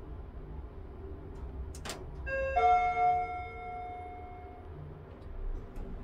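Mitsubishi elevator's 'Ele-ad' chime: after a sharp click, a short note and then a longer note that rings on for about two seconds and fades away.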